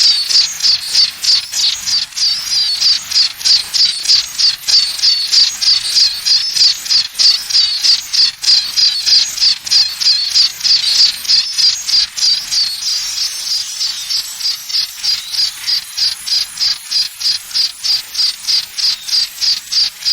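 A high-pitched sound pulsing evenly at about three chirps a second, like insect chirping, presented as the sound of tinnitus.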